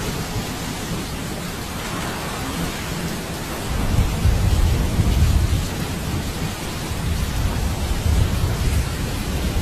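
Steady rain falling during a thunderstorm, with thunder rumbling low: a long roll starts about four seconds in and another comes near the end.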